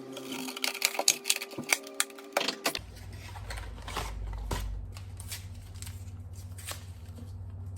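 Sharp clicks and taps of small plastic parts being handled and fitted while an instrument cluster is reassembled, the loudest in the first three seconds. A low steady hum comes in about three seconds in.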